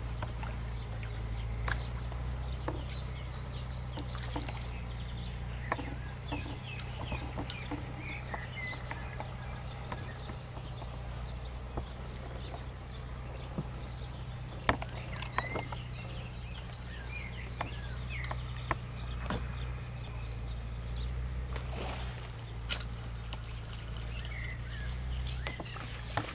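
Outdoor pond ambience: scattered short bird chirps and a few faint clicks over a steady low hum and a thin high steady tone.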